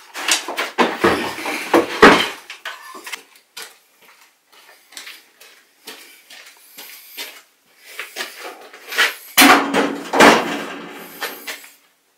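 A jumble of knocks and clatters from hard objects being handled and set down on a workbench, in two busy spells: the first couple of seconds and again from about nine seconds in, with lighter scattered clicks between.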